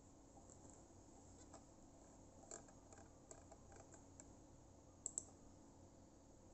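Faint clicking of a computer mouse over a quiet room, scattered ticks through the first four seconds, then two sharp clicks close together about five seconds in, the loudest sounds here.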